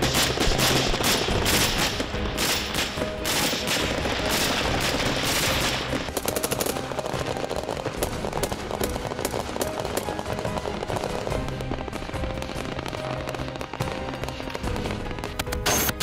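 Automatic gunfire: dense, rapid shots for about six seconds, then a quicker, more even rattle, over background music.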